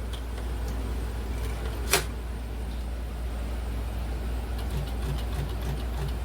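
Air conditioner running with a steady low hum, with one sharp click about two seconds in.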